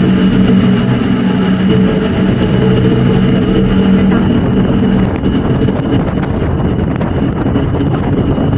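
Passenger ship's engines droning steadily, heard on board: a low hum under a rushing noise. About five seconds in, the hum fades back and the rushing noise remains.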